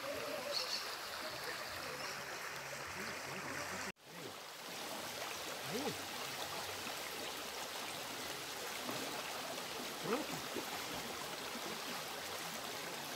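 Shallow stream running over stones: a steady rush of flowing water with faint gurgles. It breaks off abruptly for a moment about four seconds in, then resumes.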